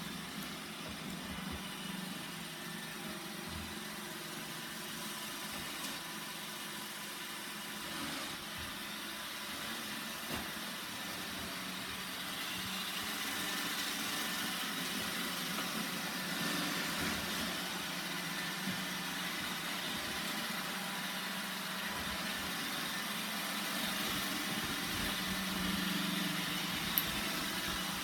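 Roomba 960 robot vacuum running: a steady motor and brush hum with a hiss, growing a little louder about halfway through, and a sharp click near the end.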